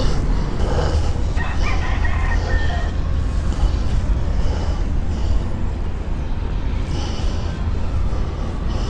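Steady low rumble, with a rooster crowing in the distance once, about a second and a half in.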